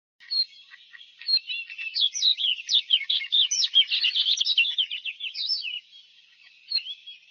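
Songbirds chirping and singing: a dense run of quick, high chirps and trills that thins out after about six seconds.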